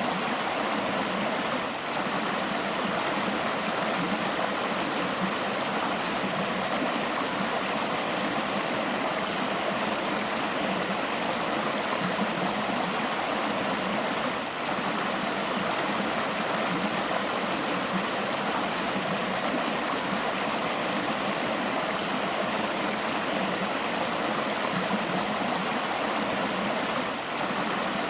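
River flowing, a steady, even rush of running water.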